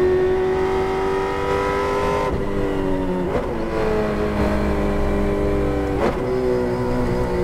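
In-car sound of a Holden Torana V8 touring car at racing speed, the engine held at high revs. The note breaks briefly three times, about two, three and six seconds in.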